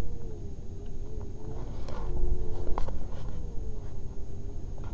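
Lamborghini Gallardo's V10 engine running at low revs in first gear, heard from inside the cabin as a low rumble with a steady hum. The engine note swells about two seconds in and falls back with a sharp click a little before the three-second mark.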